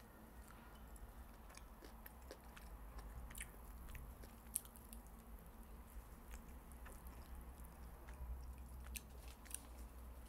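A person biting and chewing food close to the microphone, faint, with scattered small clicks from the mouth and food and a steady low hum beneath.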